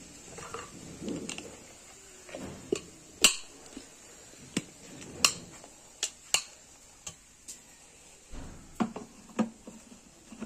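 Whole roasted spices clattering in a steel mixer-grinder jar as its clamped lid is fitted and pressed on: a series of sharp clicks and light metal knocks, with a soft rattle near the start.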